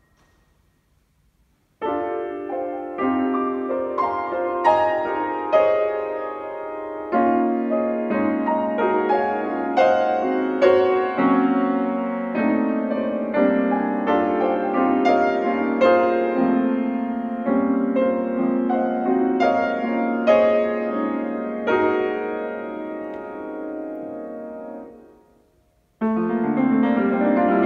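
Bösendorfer grand piano playing a dense, pedalled passage of many quick notes and chords. It comes in suddenly about two seconds in out of near silence, fades away around twenty-five seconds in, and breaks in loudly again a second later.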